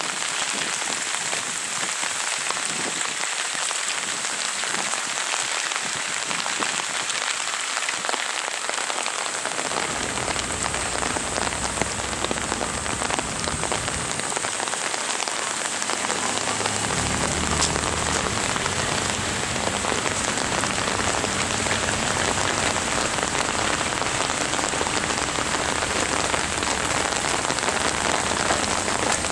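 Heavy rain falling steadily on a wet road, an even hiss. A low rumble joins about ten seconds in and grows stronger in the second half.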